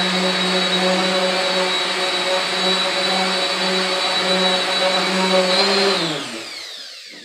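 Handheld electric random orbital sander running steadily, buffing a plastic tail panel, with a low hum and a high whine. About six seconds in it is switched off and its pitch falls as it spins down to a stop.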